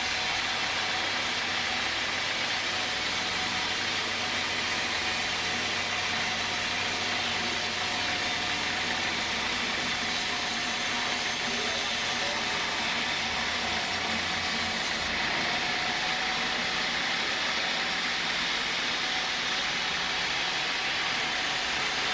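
Sawmill saw machinery running steadily over teak, a continuous loud mechanical noise with a low hum underneath. The highest hiss thins out about fifteen seconds in.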